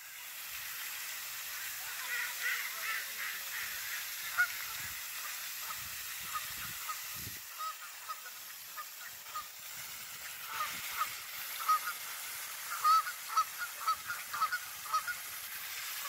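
Canada geese honking, many short calls overlapping, busiest about two seconds in and again from about ten seconds on, over the steady hiss of a pond fountain's spray.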